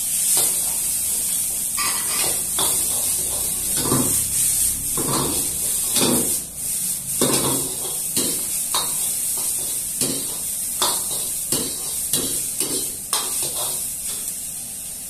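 A metal ladle scraping and knocking against a wok in short, irregular strokes, about one or two a second, as vegetables are stir-fried, over a steady high sizzle from the pan.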